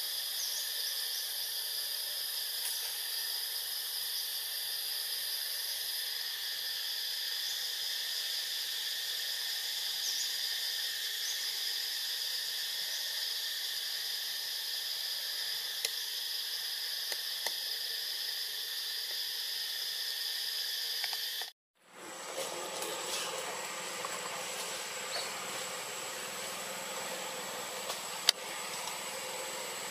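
Forest insect chorus: a steady, shrill drone on several high pitches. About two-thirds of the way in the sound cuts out for a moment and changes to a thinner steady high whine over a wider hiss, with a sharp click near the end.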